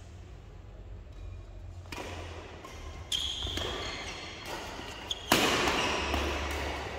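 Badminton rackets striking the shuttlecock during a doubles rally: sharp hits that ring on in the hall, the loudest about five seconds in.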